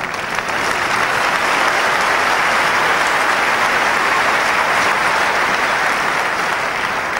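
Tennis crowd applauding a won point: steady clapping that swells about a second in and eases slightly near the end.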